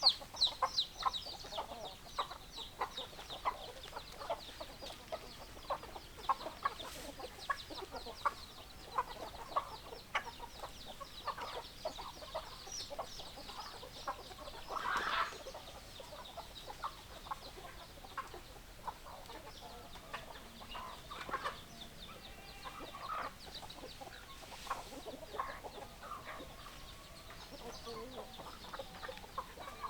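Domestic hens clucking, with many short clucks coming irregularly throughout. About halfway through there is a louder, longer squawk.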